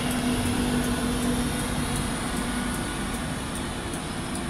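Class 91 electric locomotive running past with a steady rumble of wheels on rail and a steady low electric hum that stops about two-thirds of the way through.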